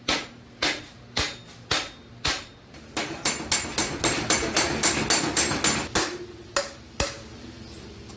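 Hammer striking sheet iron: five blows about half a second apart, then a faster run of about three blows a second, and two last blows near the end.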